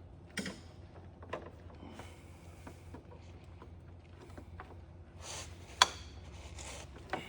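Scattered light clicks and scraping of plastic wiring-harness connectors being worked loose by hand, with one sharp loud click about six seconds in, over a steady low hum.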